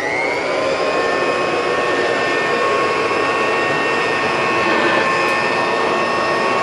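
1950s Kirby upright vacuum cleaner switched on: its motor whine rises in pitch in the first second as it spins up, then runs steady while the cleaner is pushed over carpet.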